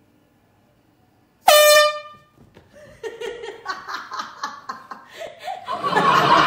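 A handheld canned air horn, fired into a large cone, gives one loud, short blast about a second and a half in. Laughter follows and grows louder near the end.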